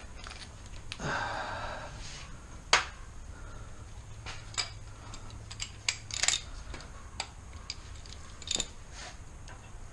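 Hand tools on car bolts: scattered sharp metallic clicks and clinks of a wrench and socket working on very tight bolts, with one louder snap a little under three seconds in.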